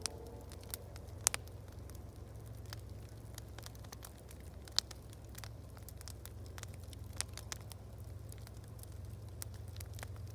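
Wood fire crackling: irregular sharp pops, two of them louder, about a second in and near the middle, over a steady low rumble.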